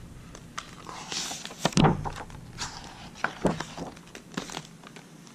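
A page of a hardcover picture book being turned by hand: a soft paper swish about a second in, with scattered light taps and knocks of the book being handled.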